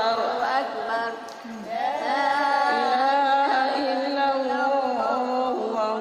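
A group of women chanting Quran recitation in unison, in long, drawn-out melodic notes that glide between pitches. The voices break off briefly about a second and a half in, then hold a long note.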